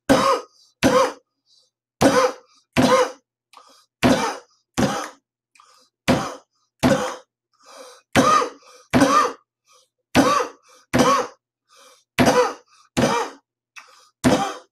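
A man's voice making short cough-like grunts in a steady rhythm, in pairs about a second apart with a new pair every two seconds, as a mouth-made beat.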